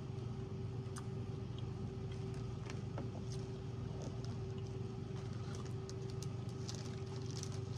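Steady low background hum with a constant tone in it, and a few faint small clicks.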